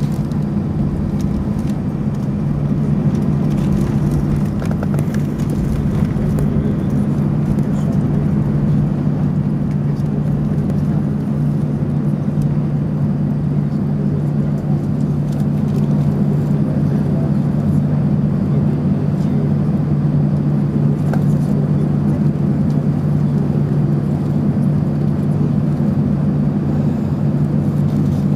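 Cabin noise inside an Airbus A319 taxiing: the jet engines at low power giving a steady low hum with no change.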